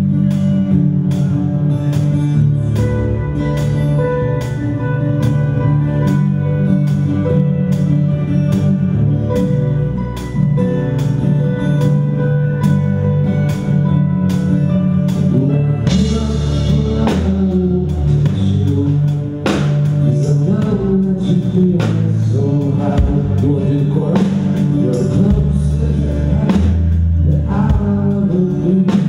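A live band playing a rock ballad: guitar and drums keeping a steady beat, with a singer's voice coming in about halfway through.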